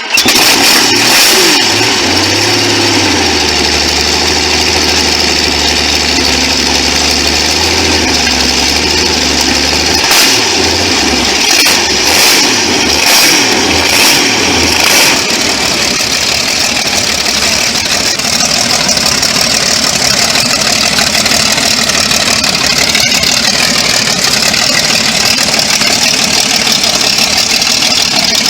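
V12 engine running just after starting, with a steady low hum at first. About ten to fifteen seconds in there is a run of short sharp bursts, after which it settles into steady running.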